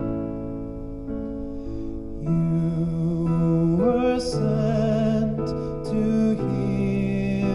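Church music: keyboard chords, joined about two seconds in by a solo singer whose notes carry a clear vibrato.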